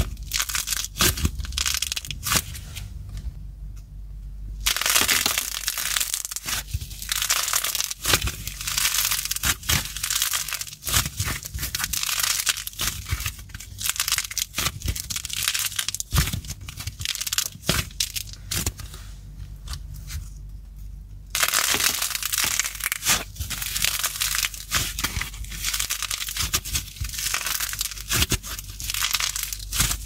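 Soft clay being squeezed and pulled apart by hand, giving off a dense run of crackling and tearing. It pauses briefly a few seconds in and again about two-thirds of the way through, with a faint low hum underneath.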